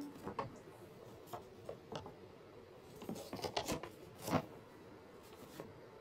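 Paper pages of a picture book being handled and turned close to the microphone: a run of short rustles and scrapes, busiest in the second half, the loudest about four seconds in.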